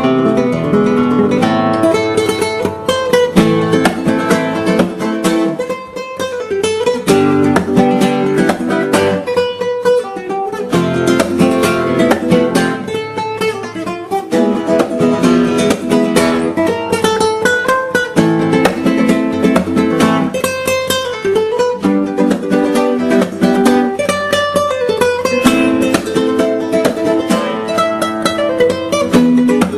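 Background music: acoustic guitar, plucked and strummed quickly with many sharp strokes.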